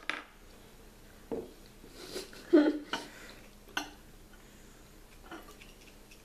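Checker pieces being moved and set down on a checkerboard: a handful of separate light clicks and knocks, the loudest about two and a half seconds in.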